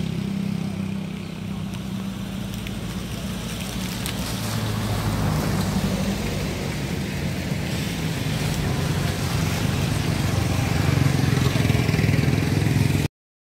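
A motor vehicle engine running steadily, getting somewhat louder toward the end.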